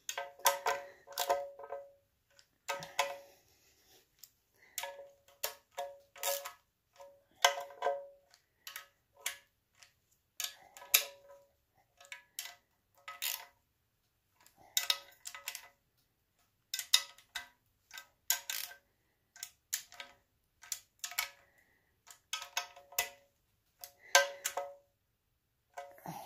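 Hand ratchet clicking in short runs of strokes, each click ringing sharply, as the bolts on a small-block Chevy's timing cover are run down.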